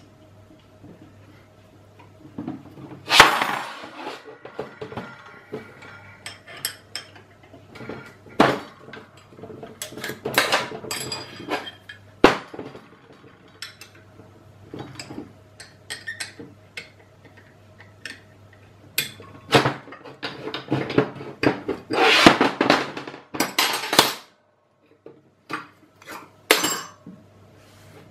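Steel clamp halves and a hex key clinking and knocking against each other and a metal bench as a bolted two-part steel clamp is unbolted and taken apart. The sharp metal knocks are scattered and irregular, the loudest about three seconds in, with a faint steady hum underneath.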